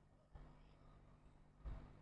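Near silence: a faint steady electrical hum and room noise, with a soft low bump about one and a half seconds in.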